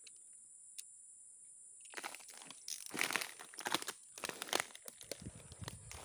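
Dry leaves and palm fronds crackling and rustling in irregular crunches, starting about two seconds in, as someone pushes through dry undergrowth.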